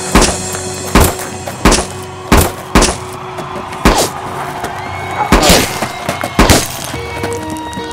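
Background music with a string of about eight sharp sound-effect impacts at uneven intervals. The one about five and a half seconds in is longer and trails off.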